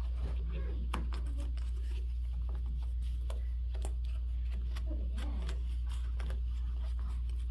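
Scattered light clicks and rustles of hands working on a rope-tensioned bass drum over a steady low hum, with a faint voice about five seconds in.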